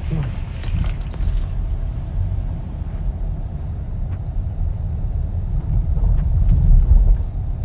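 Steady low rumble of a moving car's engine and tyres heard from inside the cabin. Brief light jingling and clicking about a second in.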